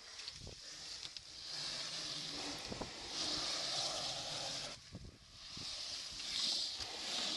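African elephant's hide rubbing and scraping against a trail camera, in about three long hissing swells with a few knocks against the housing.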